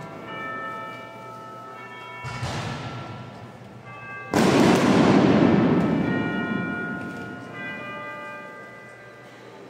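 Bells ringing with several steady overlapping tones, broken by sudden bangs: a smaller one about two seconds in and a much louder one about four seconds in that dies away slowly over a few seconds.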